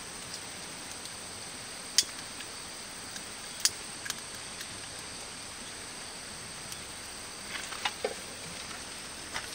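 A few sharp, light metal clicks, the loudest about two seconds in and just before four seconds, as a small metal cup of solid fuel is handled and set into the firebox of a camp rice-pot stove, over a steady faint hiss.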